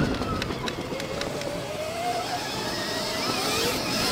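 Electric dirt bike riding on a motocross track: a faint motor whine rises in pitch as the bike accelerates, twice, over a steady rushing noise.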